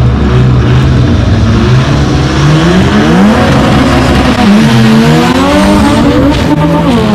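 Import tuner drag cars running steadily on the line, then launching and accelerating hard down the strip. Engine pitch climbs, drops at each gear shift, and climbs again.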